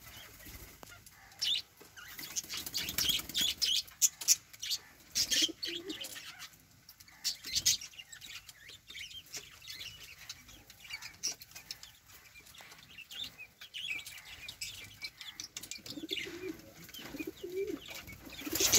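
Pigeons flapping their wings in short bursts, with lovebirds chirping again and again in the background.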